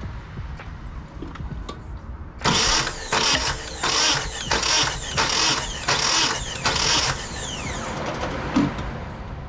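Nissan KA24DE 2.4-litre four-cylinder engine turned over on its starter motor for about five seconds during a compression test on cylinder four, surging in a steady rhythm about one and a half times a second, then winding down with a falling whine as the key is released. The cylinder reads about 135 psi, below the 151 psi that forum advice gives as the minimum.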